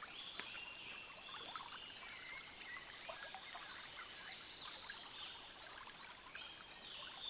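Several small songbirds singing high chirps and trills, over the faint trickle of a forest brook.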